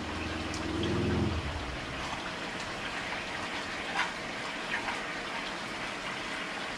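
Food sizzling in a hot frying pan on high heat: a steady hiss with a few sharp pops. A brief low hum sounds about a second in.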